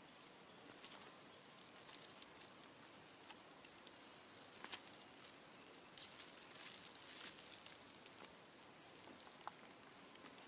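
Near silence: faint outdoor hiss with scattered light ticks and rustles.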